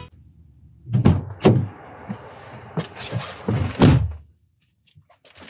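Handling noise inside a truck cab: a run of dull thumps and knocks with rustling over about three seconds, as someone moves about and handles things close to the microphone.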